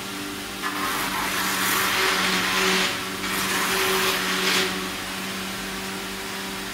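Electric-motor-driven sawdust wood crusher running with a steady hum. Branches are fed into it and crushed, giving two loud stretches of grinding noise: one from about a second in to about three seconds, and another of about a second and a half just after.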